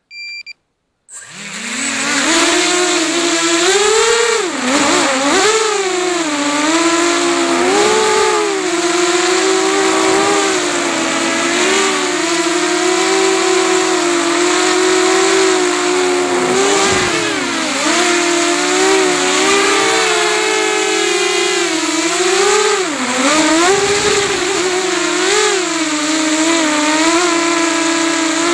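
Quadcopter electric motors and propellers recorded by a camera mounted on the drone: a short electronic beep right at the start, then the motors spin up about a second in and whine continuously, the pitch rising and dipping with throttle changes in freestyle flight.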